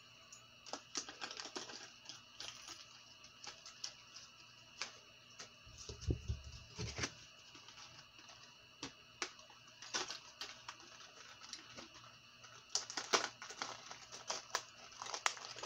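Clear plastic clamshell lure package being handled around a spinnerbait: irregular light clicks and crackles of the stiff plastic, with a dull thump about six seconds in.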